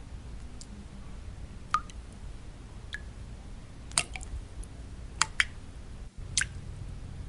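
Single water drops falling at irregular intervals, about six in all, each a sharp plink, over a steady low white-noise hiss. The background noise drops out for an instant a little after six seconds.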